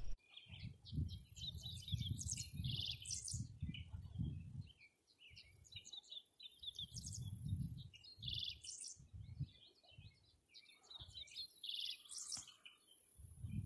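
Birds chirping and trilling in a prairie, many short calls one after another, with irregular low rumbles of wind gusting on the microphone.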